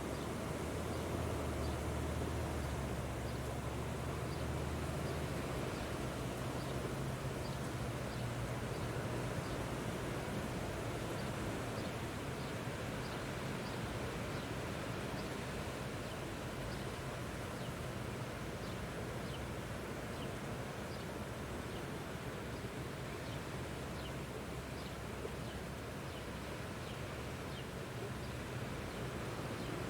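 Steady wind blowing. Under it, a low hum is strongest in the first few seconds, and a faint high chirp repeats about once a second.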